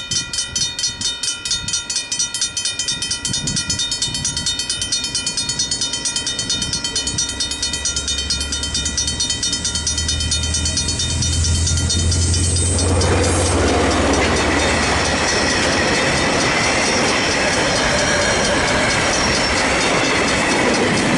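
Griswold mechanical level-crossing bells ringing in a fast, even rhythm while a diesel-hauled freight train approaches, its engine rumble building from about 8 seconds in. From about 13 seconds the train runs through the crossing, and the rolling noise of its wagons drowns out the bells.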